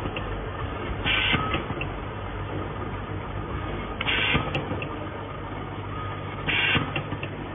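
Automatic soldering machine running: a steady low mechanical hum with a short burst of hissing, higher-pitched noise about every two and a half seconds, each followed by a few small clicks, as the machine works through a repeating cycle.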